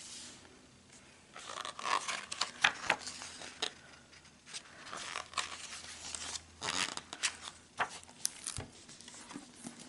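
Pages of a hardcover book being turned by hand, a paper rustle and swish with each turn, several times over.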